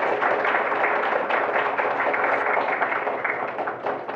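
Audience applauding, many hands clapping at once, the applause dying away near the end.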